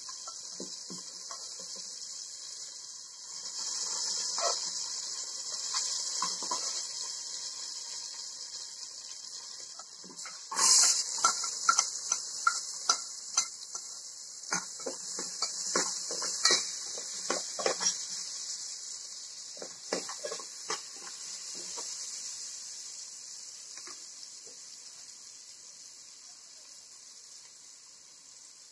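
A metal spoon stirring food in an aluminium cooking pot, scraping and clinking against the pot, with a quick run of sharp clinks in the middle, over a steady hiss.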